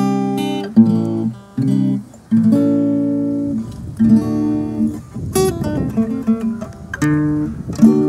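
Cutaway steel-string acoustic guitar playing an instrumental tune. Chords ring out, with two short breaks in the first couple of seconds, followed by a stretch of quicker plucked notes.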